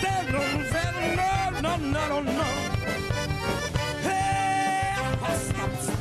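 A live band plays an instrumental passage on drums, electric guitars, saxophone and accordion. The melody glides and bends, and one note is held for about a second near the middle.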